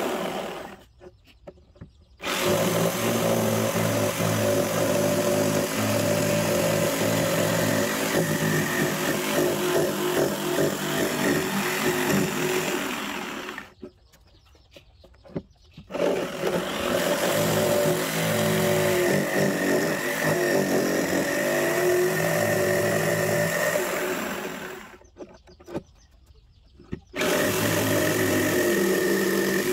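Electric jigsaw cutting through a thick wooden board along a curved line, running steadily. It stops briefly just after the start, in the middle and a few seconds before the end, each time for about two seconds, then starts again.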